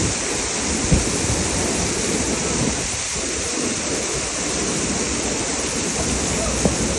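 Waterfall rushing: a steady, even wash of falling water, with two brief low thumps, about a second in and near the end.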